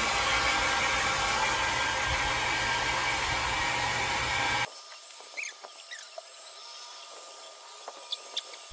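Hair dryer blowing steadily on a dog's coat, cutting off abruptly about four and a half seconds in; a few faint clicks and rustles follow.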